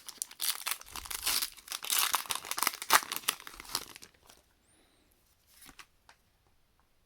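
Foil wrapper of a Pokémon trading card booster pack being torn open and crinkled for about four seconds, then a few faint rustles of handling.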